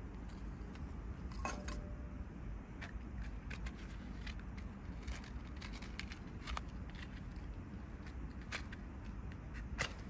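Scattered small clicks and clinks of wooden kindling and shavings being handled and laid in a metal folding fire pit, over a steady low background rumble. Near the end, a sharp scrape of a match being struck.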